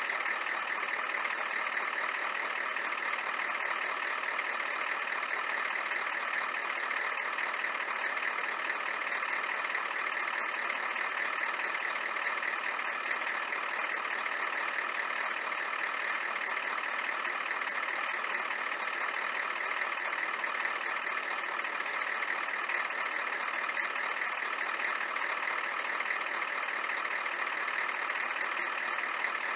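Ford 7.3-litre IDI V8 diesel in a 1993 F-350 idling steadily.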